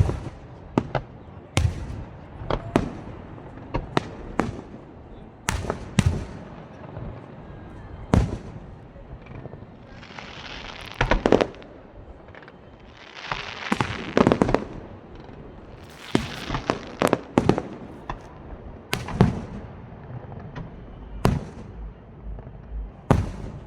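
Fireworks show: aerial shells bursting in sharp bangs at irregular intervals, some closely spaced, with a few longer, noisier stretches around the middle.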